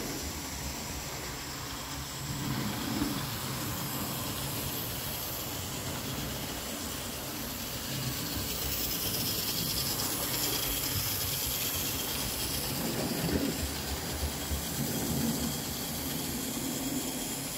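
OO gauge model train running round the track: a Hornby Hymek diesel locomotive's small electric motor and wheels on the rails, hauling Lima coaches. It gets louder about eight seconds in.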